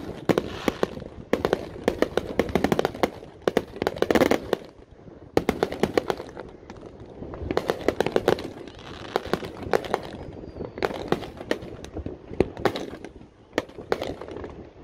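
Many consumer fireworks going off at once: rapid runs of sharp pops and crackles, coming in dense clusters with short lulls between.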